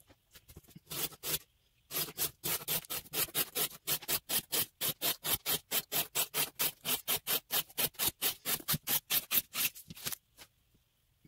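Knife blade of a Spyderco Manix 2 Lightweight in CPM REX45 steel slicing through corrugated cardboard in quick, even strokes, about four a second, during an edge-retention cut test. A few slower cuts come first, and the cutting stops about a second before the end.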